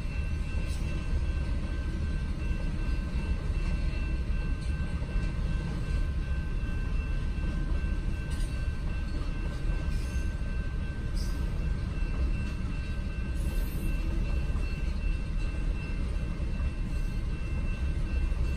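Freight train of covered hopper cars rolling past over a level crossing: a steady low rumble of wheels on rail, heard from inside a stopped car. A thin steady high tone sits over the rumble.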